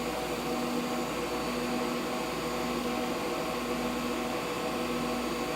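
Steady hum and hiss of running vacuum equipment, with a humming tone that drops out briefly and returns about every second.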